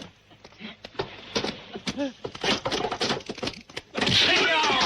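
Kung fu film fight sound effects: a quick series of punch and kick impacts with a short grunt, then near the end a loud burst of high, wavering cries.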